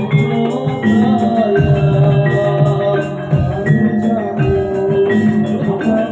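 Live jaranan music from a Javanese gamelan-style ensemble: struck metal-keyed instruments play held melodic notes over deep drum strokes every second or two.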